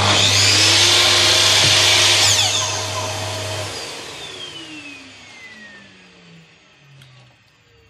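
Makita slide miter saw motor running free at full speed, the loudest part, then switched off about two seconds in, the blade coasting down with a falling whine. Beneath it the dust collector's steady hum stops a little before halfway, and its motor winds down with a slowly falling tone as the sound fades.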